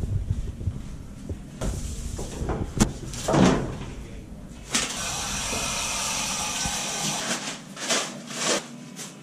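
Tap water running into a small sink for about three seconds, starting abruptly, while hands are washed. Before it come rustling and knocks of clothing and handling, and after it two short rasps.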